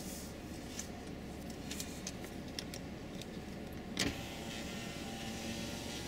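Allis Chalmers 7010 tractor's diesel engine running steadily under load as it pulls a disc harrow, heard from across the field as a low drone. There are scattered light clicks and one louder knock about four seconds in.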